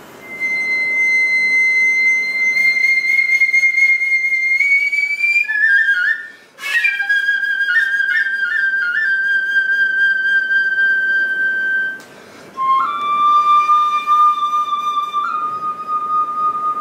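Nokan, the Noh theatre bamboo flute, playing three long held notes, each phrase lower than the last, with quick grace-note flourishes between the pitches. A sharp, hard-blown accent opens the second phrase about six and a half seconds in.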